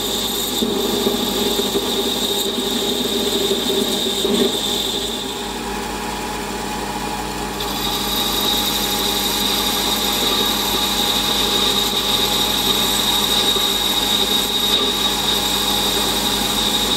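Metal lathe running with its chuck spinning while a boring bar cuts a counterbore in a metal pulley, shedding stringy swarf. The lathe gives a steady high whine, which drops out briefly mid-way and comes back a little higher in pitch.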